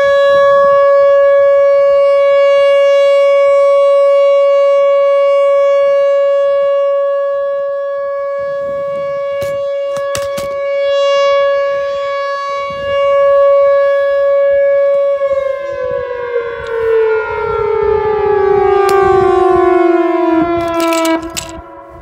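Whelen WPS 4004 electronic outdoor warning siren sounding its steady 560 Hz alert tone, swelling and fading a little as the horn array rotates. About fifteen seconds in the pitch starts sliding steadily down as the alert winds down.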